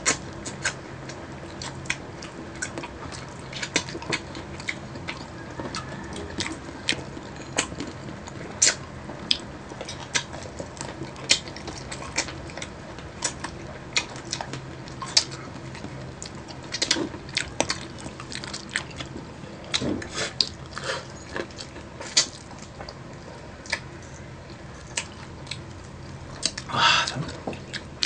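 Two people biting and chewing crispy fried chicken wings, with many short sharp crunches and mouth clicks at an irregular pace and a louder burst of crunching near the end.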